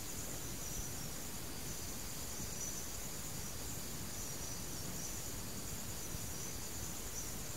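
A steady, faint background of hiss with a high continuous trill of insects, like crickets, running unbroken.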